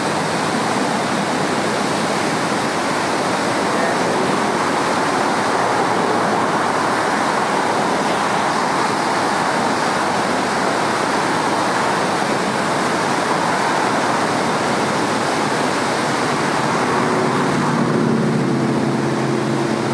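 Loud, steady rush of a whitewater river in flood, its rapids running at high water. Near the end a low steady hum joins in under it.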